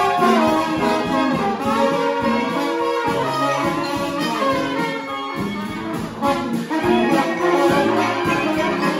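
Brass band playing a tune live: several horns holding and moving between notes over a low bass line and a steady beat.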